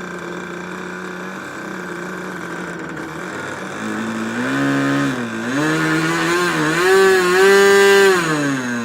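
Rebuilt Thunder Tiger Pro G60 RC model engine running, steady at first, then revved up twice, with a short dip between, before dropping back near the end. It is running a bit rich, smoking.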